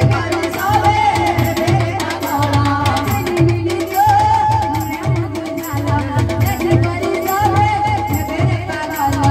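A woman singing a devotional kirtan into a microphone, backed by a hand drum playing a steady rhythm and regular metallic ticks.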